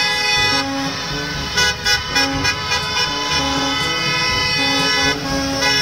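Electronic sound from a toy school bus: a buzzy horn-like tone held over a simple stepping tune, with a few clicks about two seconds in.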